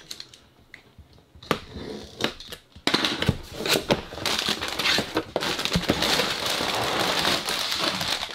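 A cardboard LEGO set box being opened, with a few sharp taps and scrapes, then from about three seconds in a steady loud crinkling of plastic parts bags sliding and rustling out of the box.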